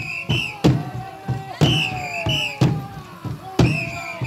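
Dance music for a street troupe: a drum beaten steadily about once a second, with high wavering piping notes over it and voices calling in the crowd.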